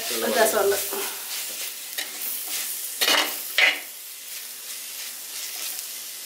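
A steel spoon stirring radish-leaf thoran in a pot while the food sizzles, with a few sharper scrapes of the spoon against the pot a few seconds in.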